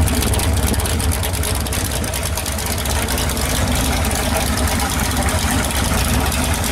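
Carbureted V8 engine of a home-built pulling tractor idling steadily on a cold start, after sitting for almost a month.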